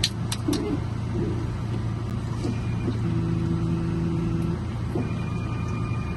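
Steady low hum of a car, with a few sharp clicks right at the start, then a steady low tone lasting about a second and a half in the middle and a fainter, higher tone near the end.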